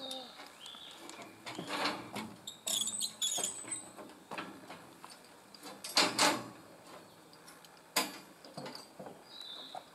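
A few scattered knocks and rustling clatter, the loudest a little after six seconds and a sharp one at about eight seconds, with faint high bird chirps near the start and end.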